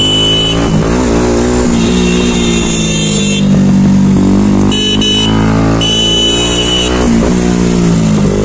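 Motorcycle engine running on the move, its pitch falling and rising several times as the throttle opens and closes. A high steady tone comes and goes three times.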